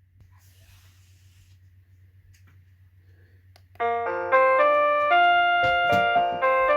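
X-Sense wireless doorbell receiver playing one of its selectable chime melodies. After about four seconds of faint hum, a loud electronic tune of quick, stepping notes starts.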